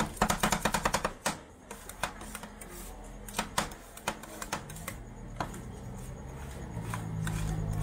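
Two metal spatulas striking and scraping ice cream mixed with fried durian pieces on the steel cold plate of a rolled-ice-cream pan: a fast run of clicking chops in the first second, then scattered taps and scrapes as the mix is spread thin. A low steady hum grows louder over the last couple of seconds.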